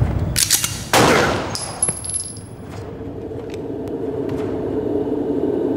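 Two pistol shots about half a second apart, each with a short echoing tail. They are followed by a brief high ringing tone and then a steady low drone.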